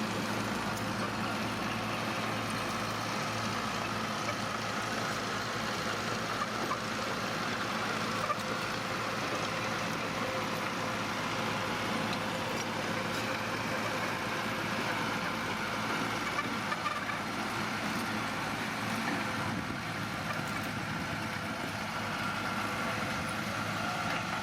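Diesel engine of heavy earthmoving machinery running steadily, a bulldozer or dump truck at work, with an even mechanical noise and no marked revving.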